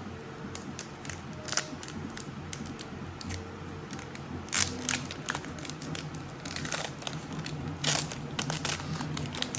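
Foil Pokémon booster pack wrapper crinkling and tearing open, a run of irregular crackles and rustles that is loudest about halfway through and again near the end.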